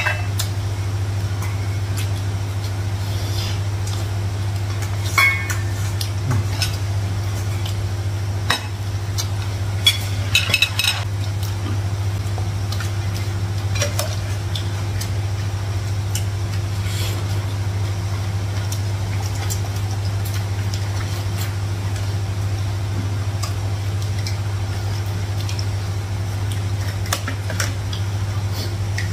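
Spoons and fingers clinking and scraping on plates and bowls now and then during a meal, over a steady low hum.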